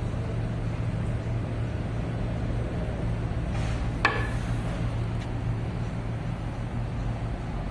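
Steady low rumble with one sharp metallic click about four seconds in, as the brass type holder of a manual hot-foil date coder is handled.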